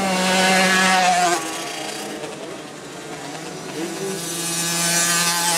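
50cc two-stroke minicross motorcycle engine running at high revs as it passes close by, fading after about a second and a half. Near the end another bike's engine grows louder as it approaches.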